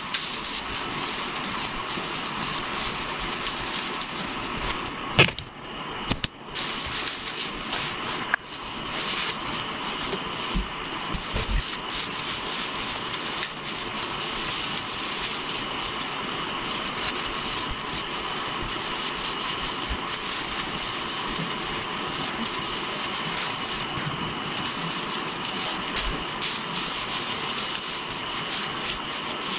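Rustling and crackling of artificial Christmas tree branches being handled and spread, with a few sharper knocks around five to eight seconds in, over a steady background hiss.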